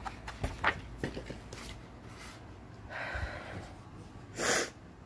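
A woman crying quietly between words: a few light clicks in the first second and a half, a long breath out about three seconds in, and a sharp sniff about four and a half seconds in, the loudest sound.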